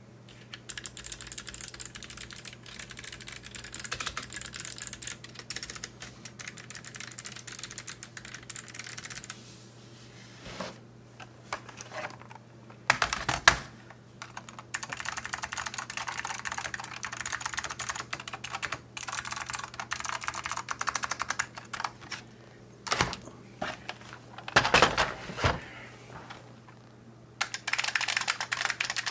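Fast typing on mechanical keyboards in three runs, broken by two pauses with a few loud knocks. The keyboards are compared in turn: clicky Kailh BOX Pale Blue switches on a Das Keyboard 4, White Alps switches on a KBParadise V80, and the capacitive buckling springs of a floss-modded IBM Model F122.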